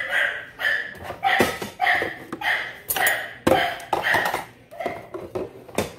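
Dishes and metal utensils clinking and knocking as they are lifted from a dish rack and put away, a clink or knock about twice a second.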